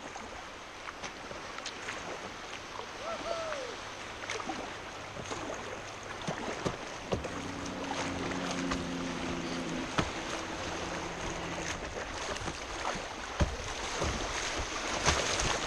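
River current rushing and splashing against the bow of a Jackson whitewater kayak running shallow riffles, with frequent short sharp splashes over a steady rush of water.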